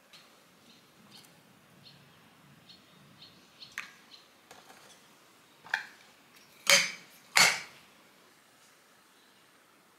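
Tableware being handled: faint small ticks, then a sharp click and two loud ringing clinks of glass and metal a little over half a second apart, from a glass teapot on a stainless warmer stand and a stainless steel kettle.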